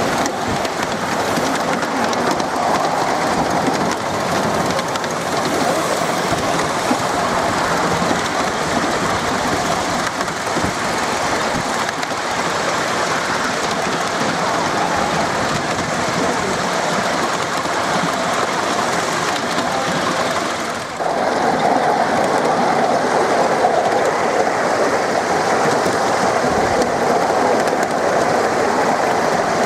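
Miniature railway train running on raised track, heard from on board: a steady rolling clatter of small steel wheels on rail. It dips briefly about two-thirds of the way through, then comes back louder and brighter.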